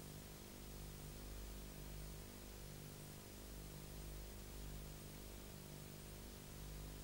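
Faint steady hiss with a low hum that swells and fades about once a second: the blank soundtrack of a silent film, with no recorded sound.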